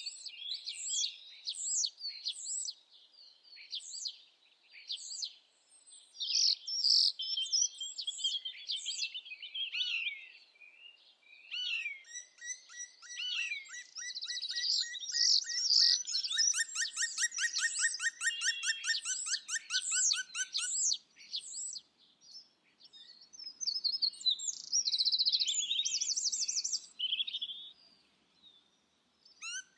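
Several songbirds singing in an evening chorus: varied whistled and chirping phrases overlapping, with long rapid trills in the middle and again near the end, and brief lulls between.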